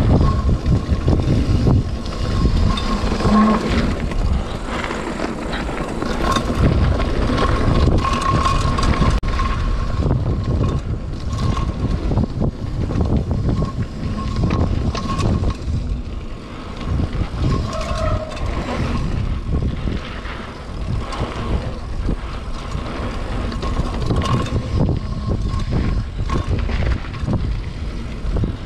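Mountain bike descending a dirt and gravel trail at speed: wind rumbling on the action camera's microphone, tyres rolling over the loose surface, and the bike knocking and rattling over bumps.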